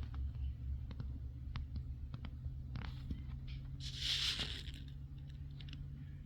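Low rumble of wind buffeting the microphone, with scattered short sharp clicks and chips and one harsh, hissing burst about four seconds in.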